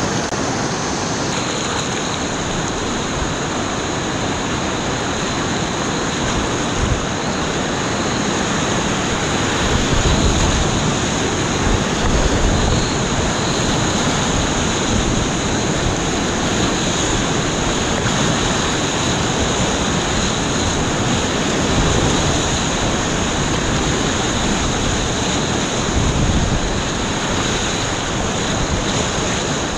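Whitewater rapids rushing around a kayak, heard up close from the boat with splashing and low buffeting on the microphone. The roar is steady, with a few louder surges about a third of the way in and again near the end.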